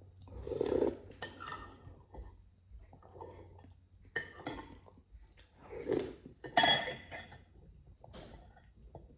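Utensils clinking against a dish, with eating noises close to the microphone, in a handful of short irregular bursts, the loudest about six to seven seconds in.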